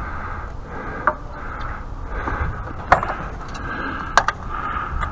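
Hand tools being handled and fitted on the pressure washer: a few sharp clicks and knocks, about four, spread out among soft rustling.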